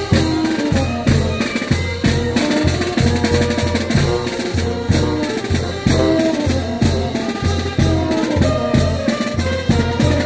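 Brass marching band playing a lively tune: sousaphones and baritone horns carrying the melody over a steady bass drum and snare beat.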